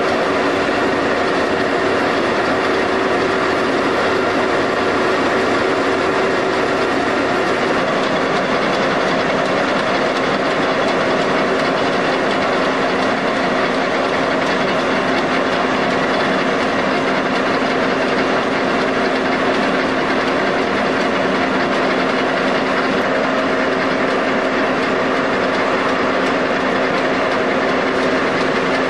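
Paper kitchen-towel printing and folding machine running at speed: a steady mechanical clatter of rollers and gears over a constant hum.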